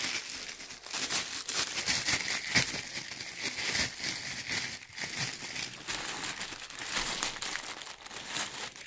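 Plastic packaging wrap around a soundbar crinkling and crackling continuously as it is handled and pulled off, with several sharper crunches along the way.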